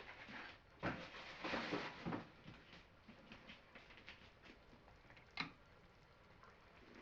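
Spatula stirring and scraping food around a frying pan during a stir-fry: a run of scrapes about a second in, then quieter stirring with one sharp clink past the middle.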